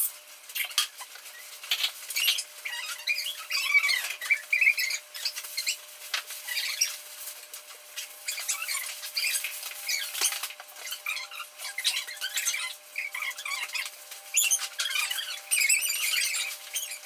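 Backpacks and gear being packed by hand: rustling fabric and frequent sharp clicks of buckles and straps, with high chirps and squeaks throughout.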